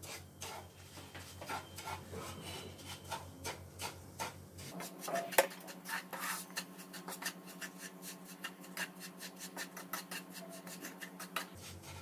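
A spatula scraping and stirring semolina roasting in ghee in a nonstick pan: a run of short, rhythmic scraping strokes, with one sharp click about five seconds in.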